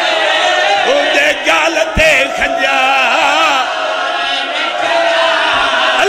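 Many male mourners chanting together, their voices overlapping and wavering in pitch. A few dull thumps cut through, the clearest about two seconds in.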